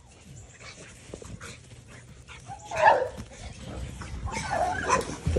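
Dog barking: one loud bark just under three seconds in, then a run of barks and yelps near the end.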